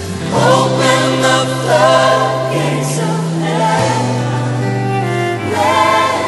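Worship music: a choir singing over instruments, with a sustained bass line changing notes every second or two.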